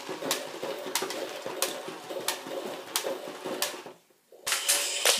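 Motorised walking mechanism of an Imaginext Mega Apatosaurus toy dinosaur running: a steady whir with a click about every two-thirds of a second as the legs step. It stops briefly about four seconds in, then starts again near the end.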